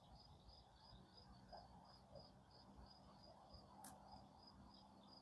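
Near silence with a cricket chirping faintly and evenly, about three chirps a second. A single faint click comes about four seconds in.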